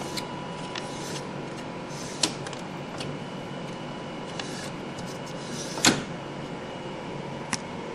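Scattered light plastic clicks and taps as hands handle the printer's carriage area and the ink-supply tubing of a continuous ink tank kit, over a steady low hum. There is a sharper click about two seconds in and a louder click with a brief rustle near six seconds.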